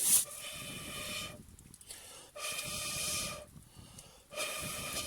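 Three long breaths blown out about two seconds apart, each lasting about a second. Each is hissy, with a steady hollow whistling tone in it.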